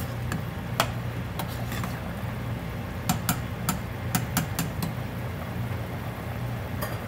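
Slotted metal spoon clinking against a stainless steel pot while a stew is stirred, with a quick run of sharp taps about three seconds in as the spoon is lifted out. A steady low hum runs underneath.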